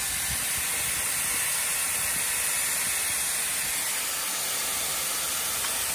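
Dyson hair styler running with a steady rush of air from its high-speed motor. It keeps running at a low mains voltage of about 186 V instead of cutting out.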